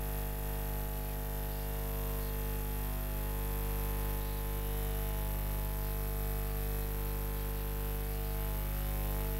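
Steady low electrical hum and buzz made of several fixed tones, unchanging throughout.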